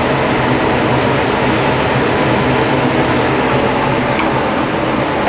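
Chopped garlic sizzling in hot oil in a frying pan, with a steady low hum underneath.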